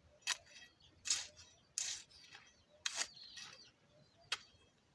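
A hand tool striking and scraping garden soil: five irregular sharp knocks, some trailing into a short scrape.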